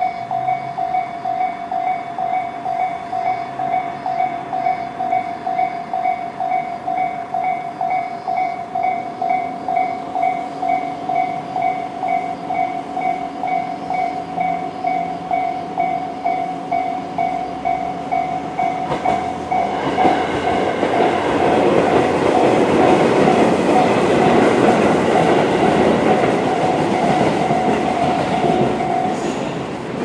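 Electronic level-crossing warning bell (Tobu sound type C) ringing as a rapid, repeating electronic ding. From about 20 seconds in, a Tobu 20400 series electric train rumbles through with wheel clatter on the rails. The bell cuts off just before the end, once the train has cleared.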